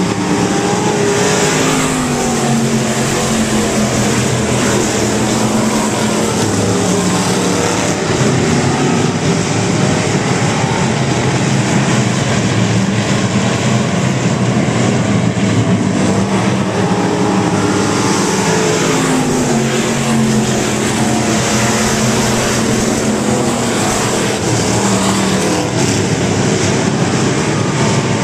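A pack of pure stock dirt-track race cars running at racing speed. The engines are loud and steady, their pitch rising and falling again and again as the cars accelerate and sweep past.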